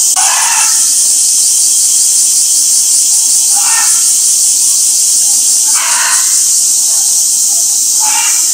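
Loud, steady, high-pitched drone of a summer cicada chorus.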